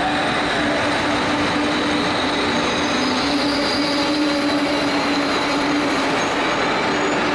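Amtrak Acela Express train rolling slowly alongside the platform as it pulls in: a steady running rumble with a held low hum and a thin high wheel squeal over it.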